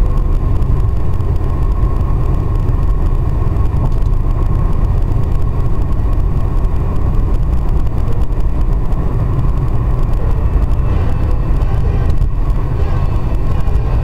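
Steady low rumble of a car driving at speed, heard inside the cabin: tyre and road noise mixed with wind noise.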